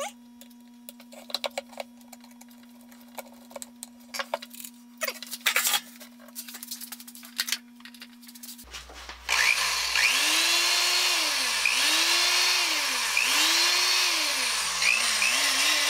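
Light clicks and taps of the drill being handled on the bench. Then, about nine seconds in, the old Black & Decker 1/4-inch drill's motor starts on its new cord and is run up and down on the trigger: its whine rises and falls about four times, then flutters quickly near the end. It runs without shorts or pops.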